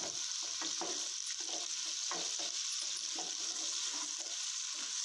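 Sliced sweet potatoes sizzling in hot oil in a kadhai, with a steady hiss and a spatula stirring them through, scraping and knocking against the pan now and then.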